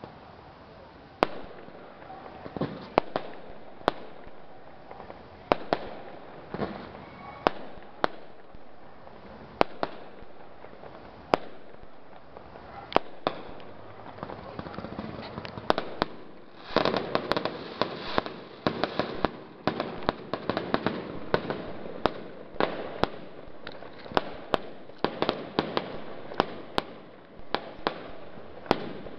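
Aerial fireworks display: shells bursting with sharp bangs every second or two, then, a little past halfway, a dense rapid string of bangs with crackling that carries on to the end.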